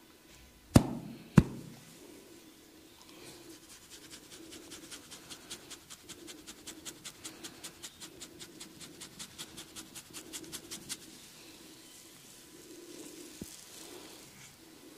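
Massage sounds: two loud, sharp cracks a little over half a second apart, then a fast, even run of light clicks, about four or five a second, for some eight seconds.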